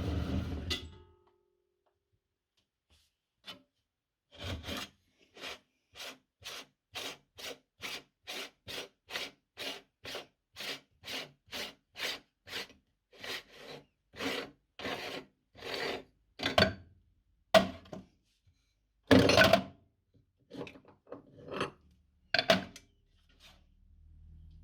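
A motor running cuts off about a second in. Then comes a long run of short rasping strokes, about two a second, with a few louder, uneven ones near the end.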